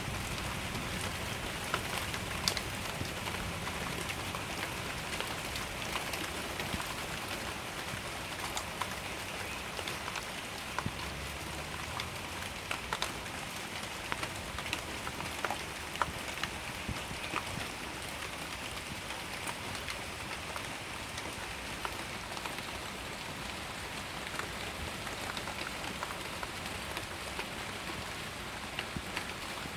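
Steady heavy rain, with many individual drops ticking sharply on nearby surfaces.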